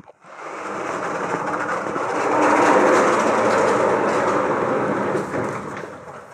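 Vertically sliding lecture-hall chalkboard panels being pushed past each other in their frame: a steady rolling noise that builds over the first couple of seconds and fades out near the end.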